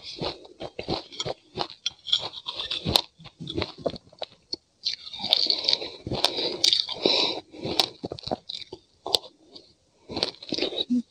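Close-up crunching and chewing of sesame seeds mixed with frozen passionfruit, with a metal spoon scraping and clinking in a glass mug. Short crisp clicks throughout, with the densest crunching about halfway through and a brief pause near the end.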